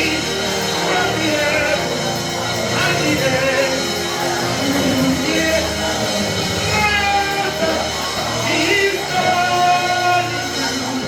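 Live gospel worship music: instruments holding sustained chords with a singer's voice over them.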